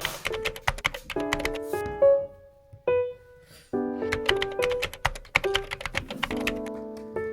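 Background music: short melodic phrases of pitched notes over crisp clicking percussion, thinning out briefly a couple of seconds in.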